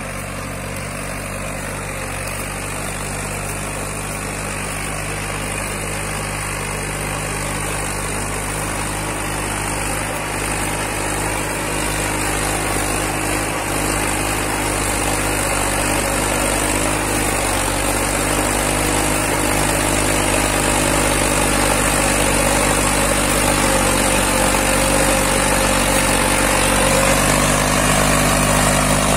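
Massey Ferguson 241 DynaTrack tractor's three-cylinder diesel engine running steadily under load while pulling a tillage implement, growing slowly louder as it comes closer.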